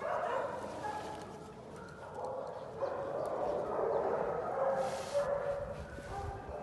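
A dog whining in a series of drawn-out high cries.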